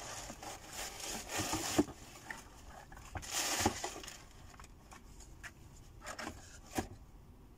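Tissue paper rustling and crinkling as a new sneaker is pulled out of its shoebox: two stretches of rustling about a second long, the first near the start and the second about three seconds in, then a few light knocks from handling the shoe and box.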